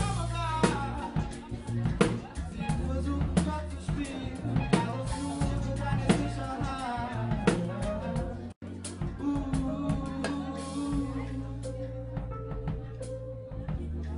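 A live band plays: a drum kit keeps a beat over a steady bass line, with a vocal over it in the first half. About eight and a half seconds in, the sound cuts out for an instant; after that the drums thin out under long held bass and keyboard-like notes.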